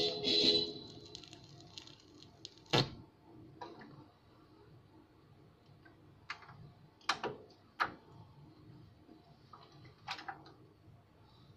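Pioneer turntable tonearm being handled after a record finishes: the music cuts off as the stylus is lifted from the groove, then a few sharp clicks and knocks as the arm is set on its rest and the deck's controls are worked, the loudest about three seconds in.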